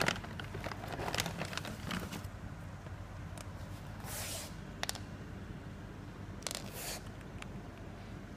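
Handling noises: scattered light taps and clicks, then two short bursts of rustling about four and six and a half seconds in.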